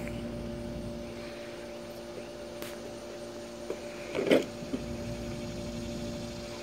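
Steady machine hum made of a few even tones. About four seconds in a toddler gives a brief vocal sound, and there are a few faint light knocks.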